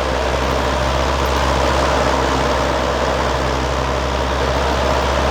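1960 Lasko 20-inch oscillating box fan running on high speed: a steady rush of air over a low motor hum, getting a little louder over the first two seconds as it comes up to speed.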